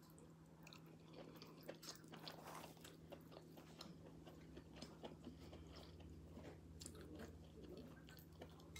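Faint, irregular chewing of seafood-boil food, with small wet mouth clicks, over a low steady hum.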